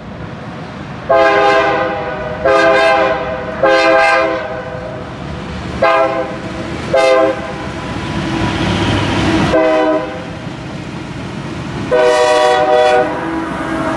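Diesel freight locomotive's air horn sounding a series of blasts at a grade crossing: three longer blasts, a few short ones, then a longer one near the end. Between blasts the lead locomotives rumble past.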